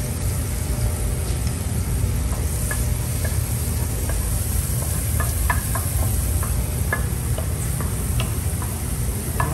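Butter melting in a nonstick frying pan over a gas flame, pushed around with a wooden spatula: scattered light ticks and clicks with a faint sizzle, over a steady low rumble.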